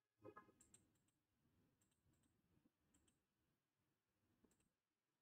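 Near silence: room tone with a few faint, scattered clicks, most of them within the first second.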